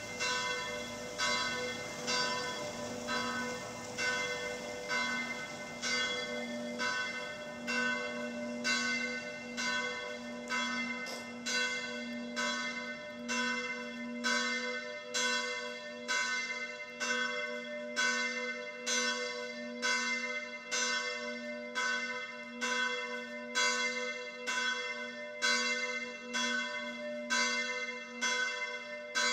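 A large bell tolling steadily, struck evenly about one and a half times a second, each stroke ringing into the next over a continuous low hum.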